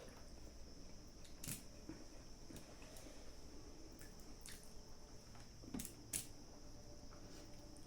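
Quiet eating sounds: soft, wet chewing and squishing of food, with a few sharp clicks, one about a second and a half in and two close together near six seconds.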